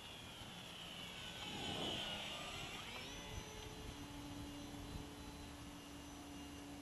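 E-flite Maule M7 RC model plane's electric motor and propeller whining as it flies past. The pitch drops as it goes by about two seconds in, then settles to a steady hum as it flies away.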